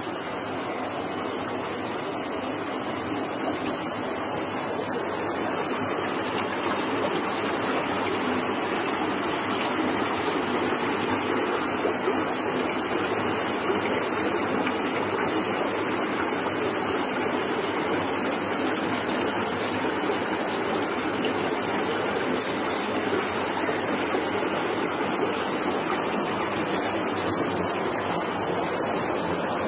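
Steady rush of flowing stream water, getting a little louder over the first several seconds and then holding even.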